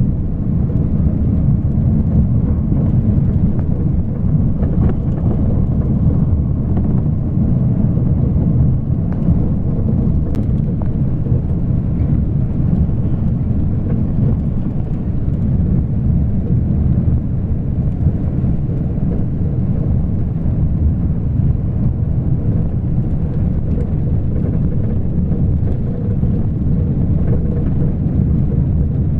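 Steady low rumble of a moving road vehicle, with engine, tyre and wind noise heard from inside it.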